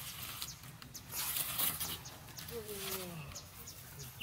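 Outdoor forest ambience: scattered short high chirps and clicks, a brief rustle about a second in, and one short, falling low animal call around the middle.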